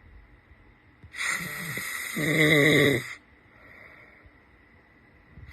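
A man snoring loudly in his sleep: one snore about two seconds long, starting a little after a second in as a harsh rasp and swelling into a louder, pitched, moan-like drone before stopping; the next snore starts just at the end.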